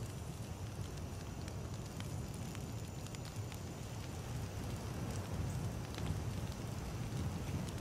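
Wood campfire burning: scattered small crackles and pops over a steady low rumble.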